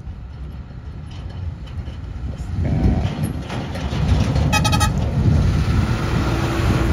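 Heavy diesel vehicle engine running with a deep rumble that grows louder about two and a half seconds in, and a brief horn toot a couple of seconds later.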